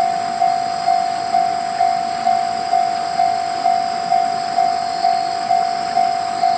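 Japanese railway level-crossing warning bell ringing, an even repeating ding about twice a second: the crossing signal is active for an approaching train.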